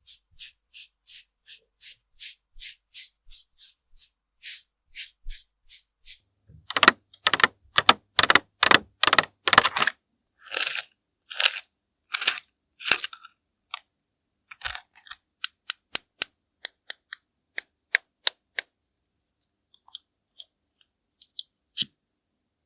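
Make-up tools worked against a grapefruit's peel in ASMR close-up: an even run of short, crisp strokes at about three a second, then louder, scratchier strokes and a few longer rubs, then a quick run of sharp ticks before it thins out near the end.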